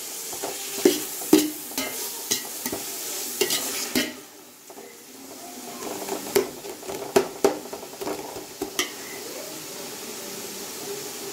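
Perforated steel skimmer ladle scraping and clacking against an aluminium pot as onions, tomatoes, herbs and ginger-garlic paste are stirred and sautéed in hot oil, under a steady sizzle. The sizzle drops back briefly about four seconds in, then picks up again.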